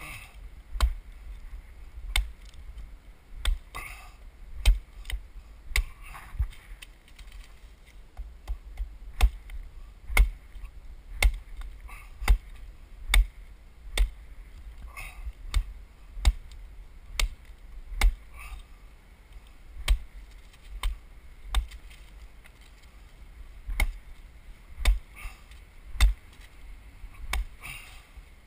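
Oak wood being chopped by hand: sharp, loud blows, roughly one a second, with short pauses between runs of strokes.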